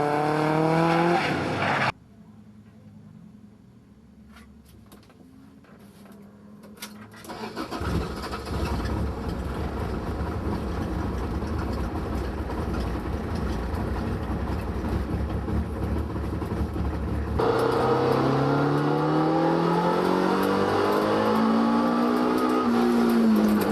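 Toyota AE85 Sprinter Trueno's four-cylinder engine revving, its pitch rising and falling; it cuts off suddenly about two seconds in to a quiet stretch with a few clicks. A steady low rumble starts at about eight seconds, and from about seventeen seconds the engine revs up and down again.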